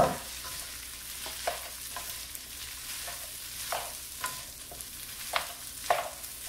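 Rice frying with a steady sizzle in bacon grease in a nonstick frying pan while a plastic slotted spatula stirs and scrapes it. Several sharp knocks and scrapes against the pan, the loudest right at the start.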